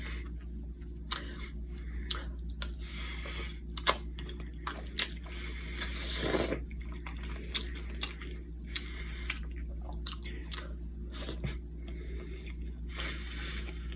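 A person chewing spaghetti close to the microphone, with many short, irregular mouth clicks, over a steady low hum.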